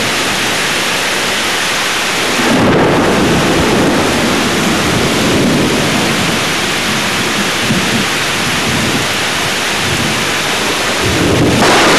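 Heavy rain pouring steadily. Thunder rumbles in about two and a half seconds in, rolls on, and swells again near the end.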